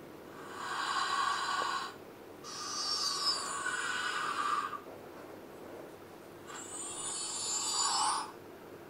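A girl blowing out three long breaths through her open mouth, heard through a smartphone's speaker.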